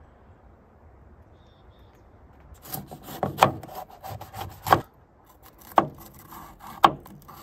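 Chef's knife slicing a green bell pepper on a plastic cutting board: a crisp cut ending in a tap on the board with each stroke. The cuts start about two and a half seconds in, a few in quick succession, then single cuts about a second apart.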